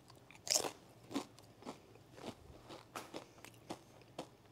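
Someone biting into a tortilla chip loaded with guacamole and chewing it: one loud crunch about half a second in, then shorter crunches roughly every half second as it is chewed.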